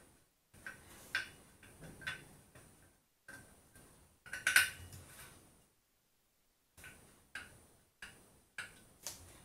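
Metal clicks and clinks of a T-handle hex key turning in the bolts of a motorcycle brake disc as they are unscrewed: about ten separate clicks, the loudest about halfway through.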